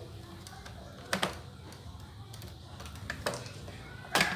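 A few sharp plastic clicks and snaps as a laptop's back cover is pried off with a knife and its clips let go, the loudest near the end.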